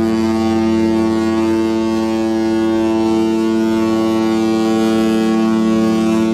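One long, steady blast of a ship's horn: a deep pitched tone that starts suddenly and holds without change.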